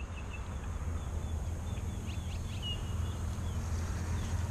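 Small birds chirping in short repeated calls, a brief louder cluster about two seconds in, over a steady low rumble.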